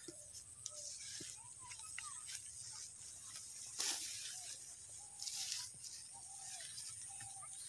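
Rice stalks and leaves rustling and scraping against the camera as it is pushed through the field, with scattered crackles and louder brushes about four seconds in and again past five seconds. Faint short chirps and a steady high-pitched whine sit underneath.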